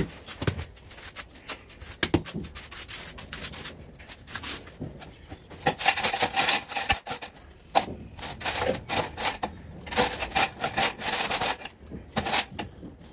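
An aluminium straightedge and a trowel scraping across a loose sand-and-cement mortar bed, screeding it level before marble is laid: repeated gritty scraping strokes, heaviest in the second half, with a few sharp knocks near the start.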